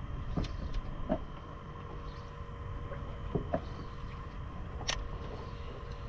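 Steady low rumble of a small fishing boat at sea, with a faint steady hum and a few soft, brief knocks.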